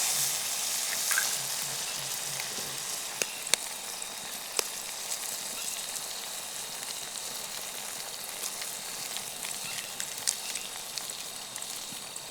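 Mashed potato and spice masala sizzling steadily in a frying pan, with eggs cracked over it. A few sharp clicks stand out, the first few between about three and five seconds in and another near the end.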